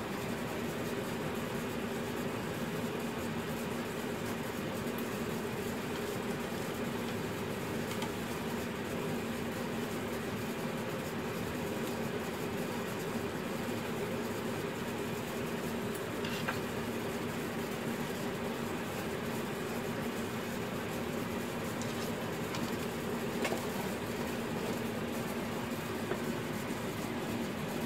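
Steady low machine hum, like a fan or heater running, with a few faint clicks of small tools on the plastic model chassis.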